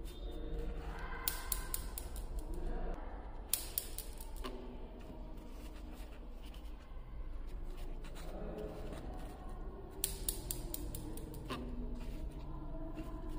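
Glass marbles of a homemade cardboard Newton's cradle clicking against one another as they swing: three runs of quick sharp clicks, about a second in, around three and a half seconds in and around ten seconds in, each dying away within a second or so.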